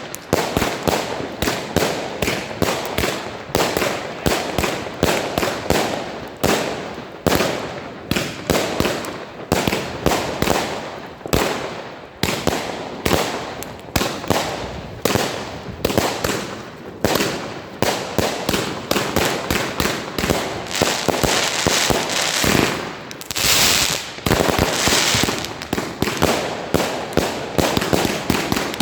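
Katan 'Tornado' 144-shot, 25 mm fireworks cake firing: a rapid, continuous string of shots, several a second, with a denser, louder cluster near the end.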